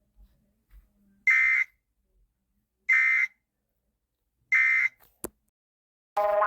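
Emergency Alert System end-of-message data bursts: three short, identical buzzy electronic screeches about a second and a half apart, the digital signal that closes an EAS alert. A brief click follows, and another alarm's tones begin right at the end.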